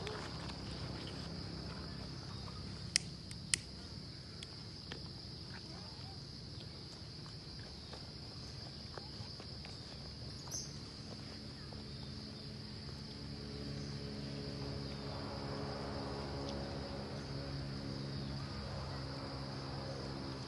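Steady high-pitched drone of insects, with two sharp clicks about three seconds in. Past the middle, a low steady hum joins in.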